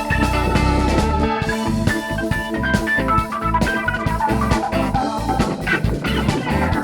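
Live rock band playing an instrumental passage: drum kit, electric guitar and organ together with a steady beat.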